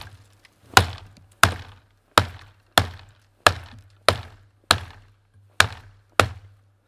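Hultafors Hultan hatchet chopping into a downed hemlock branch: nine sharp, evenly paced blows, about one and a half a second, as the bit cuts a notch and throws chips.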